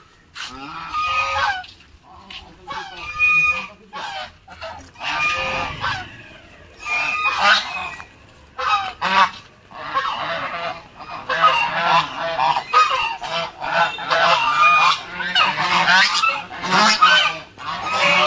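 Flock of domestic geese honking over and over, single calls at first, then many calls overlapping in the second half.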